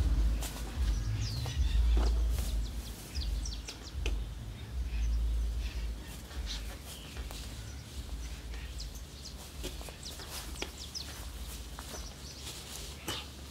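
Small birds chirping in short calls over a low rumbling background that is strong in the first half and eases off after about six seconds. Scattered light clicks and rustles of footsteps on dry ground with fallen leaves.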